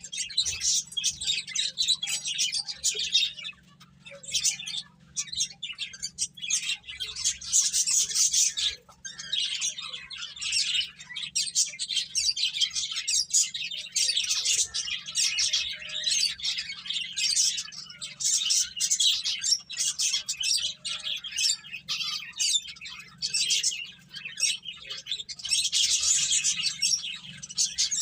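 Pet finches chirping: many quick, high calls overlapping in busy bursts, with brief lulls about four and nine seconds in.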